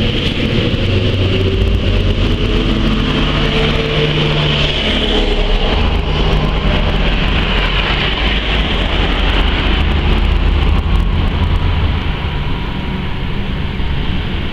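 Street traffic: motor vehicles running and passing, with a steady low engine drone that shifts pitch about five seconds in.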